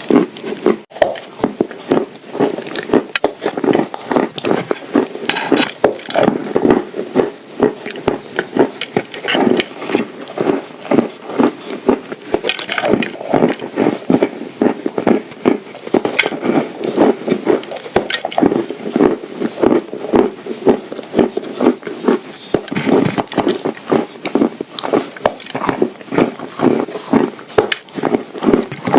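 Close-miked crunching and chewing of dry, baked clay, a dense run of rapid crackles and crunches throughout.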